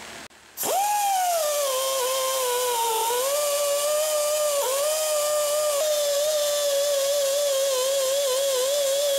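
Right-angle die grinder with an 80-grit Roloc disc starting up about half a second in, its pitch shooting up and settling into a steady high whine. It then grinds the steel stator housing of an electric motor, and the whine dips and wavers as the disc is pressed onto the metal.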